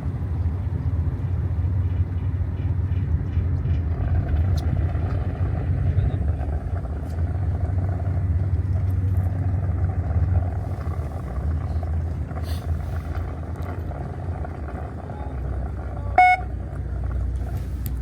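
A fishing boat's engine running with a steady low rumble. One short, high beep sounds near the end.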